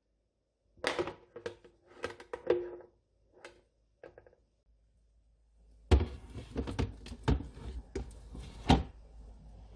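Knocks and clatter of kitchen items being handled: a few knocks with a short ring early on, then a quicker run of sharp knocks in the second half, two of them loudest.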